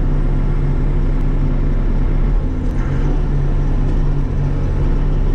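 Bobcat E42 mini excavator's diesel engine running steadily, with the hydraulics working as the boom lifts.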